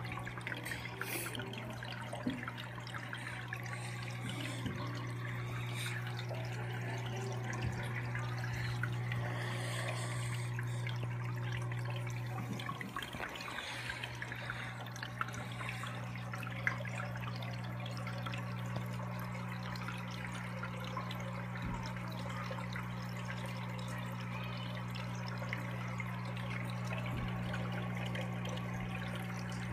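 Aquarium filter running in a turtle tank: a steady low hum with water trickling and splashing.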